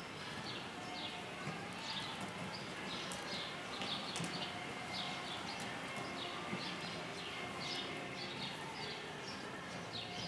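Horse walking under a rider on soft arena dirt, with muffled hoofbeats. A steady run of short, high, falling chirps comes about twice a second throughout.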